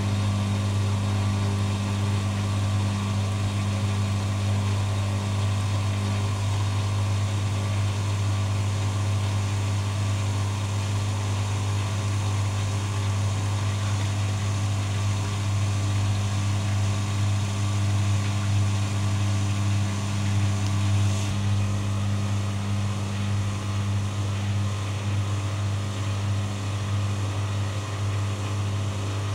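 Arçelik 7103 front-loading washing machine running mid-wash: the drum turns with wet laundry and water sloshing over a steady low motor hum.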